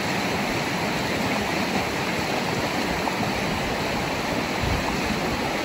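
Shallow, rocky river flowing steadily, a constant even rushing of water.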